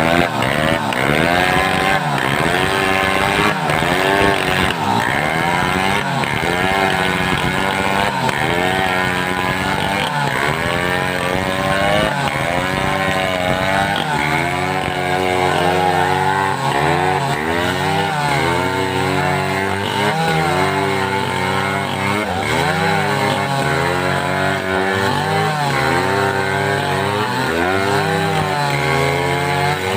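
Homemade two-stroke chainsaw cutting wood, its engine pitch dipping and rising again every second or so, more evenly in the second half.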